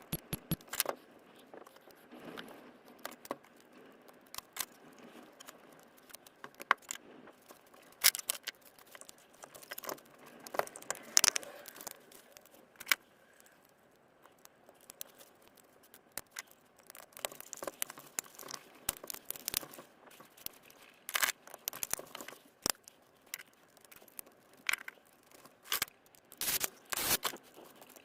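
Irregular sharp clicks, taps and short scrapes of hands and tools handling the plastic case and cells of a DeWalt 18V battery pack being worked on.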